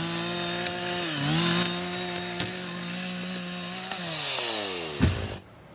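Two-stroke chainsaw running at full throttle cutting through jackfruit wood. Its pitch dips briefly about a second in as the chain loads up, then falls away as it is throttled down from about four seconds. A low thud comes just after five seconds, and then the sound cuts off.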